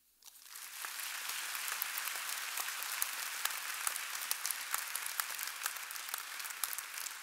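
Audience applauding: many hands clapping in a large hall, swelling within the first second and then holding steady.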